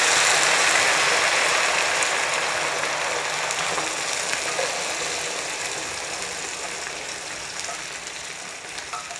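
Hot coconut oil with fried shallots, coconut pieces, curry leaves and green chillies sizzling hard as cooked mutton curry is poured into the pan, loudest at first and slowly dying down.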